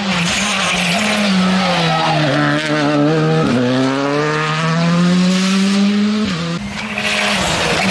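Rally car engine at full competition pitch as the car brakes into a tight hairpin and accelerates out. The revs swing up and down with the gear changes, with sharp drops about three and a half seconds in and again near the end.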